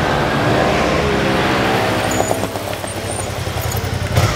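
Suzuki V-Strom 650's V-twin engine running as the motorcycle rides along and passes close by. Its note falls over the first couple of seconds and then holds steady.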